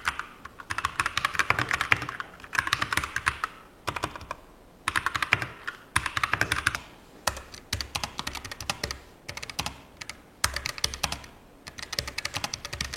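Typing on a Keychron mechanical keyboard with brown switches: fast runs of key clicks in spells of a second or two, with short pauses between.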